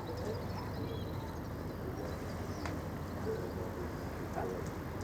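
Waterfront ambience: a steady low rumble under faint bird calls, with pigeons cooing.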